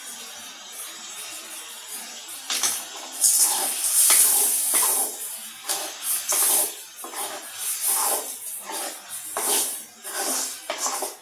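Prawns, tomatoes and spices sizzling in oil in a metal kadai. About two and a half seconds in, a metal spoon starts scraping and stirring against the pan in repeated strokes, every half second to a second.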